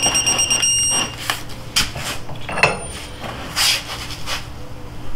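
Digital click-less torque wrench's beeper sounding a steady high beep that cuts off about a second in: the 250 ft-lb target has been reached on the bolt. A few clicks and knocks of the wrench being handled follow.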